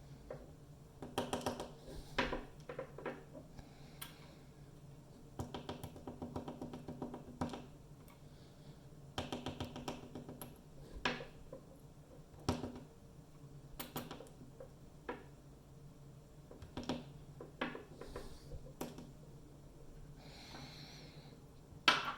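Small metal parts of an ABUS 72/40 padlock clicking and rattling as the lock is taken apart: three bursts of rapid clicking, with single sharp clicks in between.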